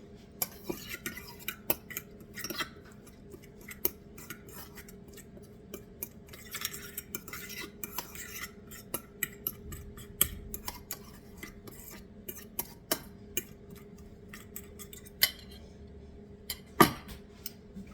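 A fork stirring dressing in a bowl, with irregular clinks and taps of metal on the bowl and a louder clank near the end.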